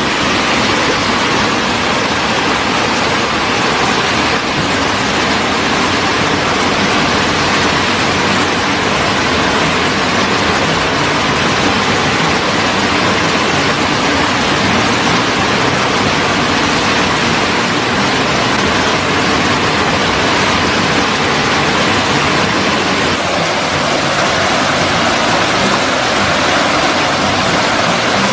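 Steady, loud rushing noise that holds unchanged without a break.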